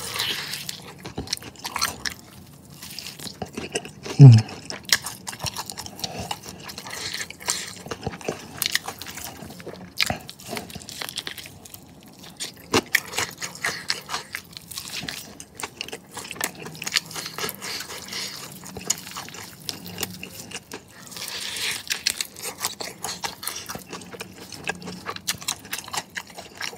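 Close-miked chewing and crunching of crispy fried chicken wings, with many short crisp crackles and mouth clicks. About four seconds in there is a short, loud hum of the voice falling in pitch.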